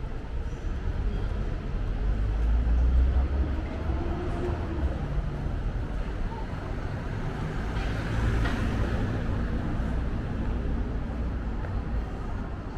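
City street traffic noise with a steady low rumble. About eight seconds in, a car drives past close by, its tyre hiss swelling and fading.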